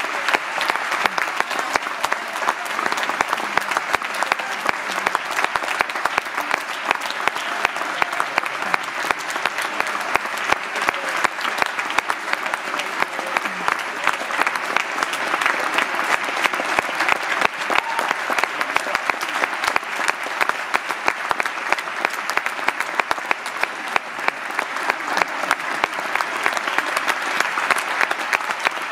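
Audience applauding in a sustained curtain-call ovation: dense, steady clapping.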